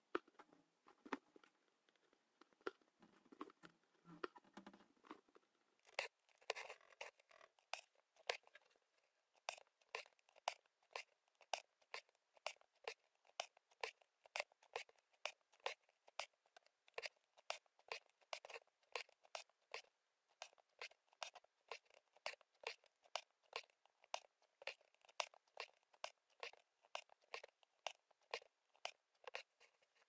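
Embroidery needle and thread going through fabric while long and short stitches are worked: faint crisp pops and rasps, irregular at first, then a steady run of about two a second.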